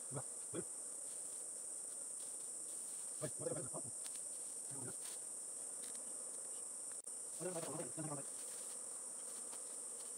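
A steady high-pitched insect chorus drones on without a break. A few brief low voice sounds cut in, the longest about a third of the way in and another near the end.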